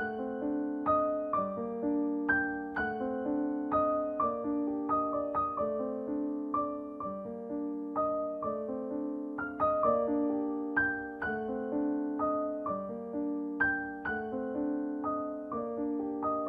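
Background piano music: a gentle, steady melody of struck notes over chords, each note ringing and fading.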